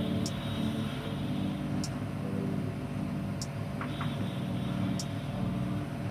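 Hot air rework gun blowing steadily with a low hum, and a faint high tick about every one and a half seconds.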